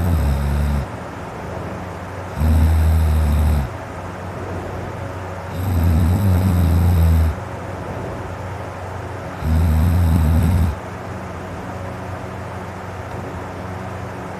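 A man snoring deeply in his sleep: low-pitched snores of a bit over a second each, about one every three and a half seconds. The tail of one snore at the start, three full snores, then a pause with no snore near the end.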